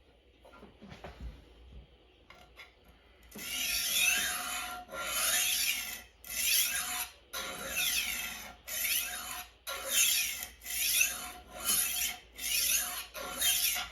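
Tumbler rolling knife sharpener's diamond disc rolled back and forth along a steel knife edge, grinding the edge. After a few seconds of faint handling clicks come about a dozen steady rasping strokes, roughly one a second.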